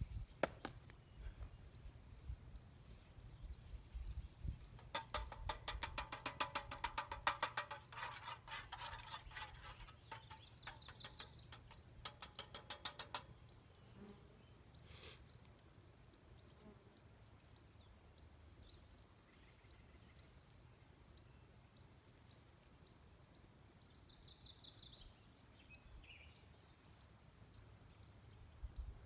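Eggs being beaten with a fork in a metal cup or pan: a run of rapid, rhythmic metallic clinks that starts about five seconds in, lasts about eight seconds and stops abruptly.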